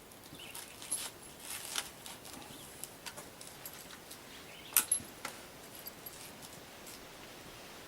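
Scattered light clicks and small rattles of objects being handled, with two sharper clicks in quick succession about five seconds in; no shots are fired.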